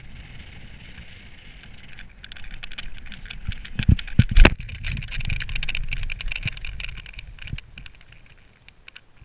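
Air rushing over the microphone of a paramotor gliding in with its engine dead, then an engine-out (dead-stick) touchdown on grass: a run of thuds and footfalls from about two seconds in, one loud thump a little past the middle, then scuffing and rustling in the grass that dies away near the end.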